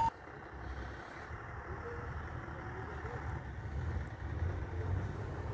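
Diesel fire engine idling at a distance, a low steady rumble, with faint distant voices.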